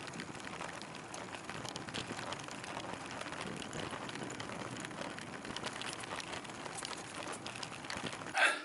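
Bicycle tyres rolling over a rocky, sandy dirt road: a steady gritty crackle full of small clicks. A brief louder sound comes near the end, just before it cuts off.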